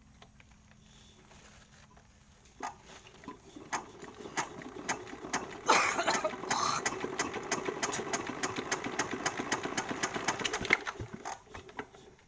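Dompeng single-cylinder diesel engine, once flooded, being cranked: the strokes come slowly at first and speed up. The engine catches about halfway through and runs for about five seconds, then slows and dies.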